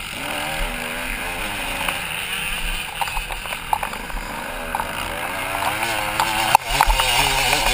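Motocross bike's engine revving up and down as it is ridden around a dirt track, heard from the rider's helmet, with wind rush on the microphone. A sharp knock comes about six and a half seconds in.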